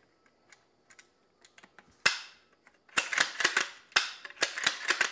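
Ruger Precision Rifle's bolt action being worked in a function check after reassembly: a string of sharp metallic clicks and clacks from the bolt and trigger. A few faint clicks come first, then louder clacks from about two seconds in.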